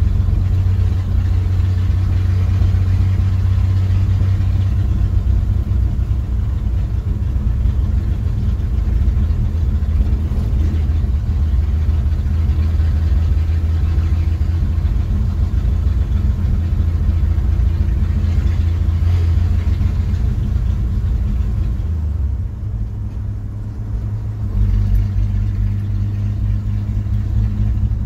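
A 1969 Chevrolet C10 pickup's engine and exhaust running steadily at a cruising pace, heard from inside the cab along with road noise. Near the end the low drone drops for a couple of seconds, then picks up again.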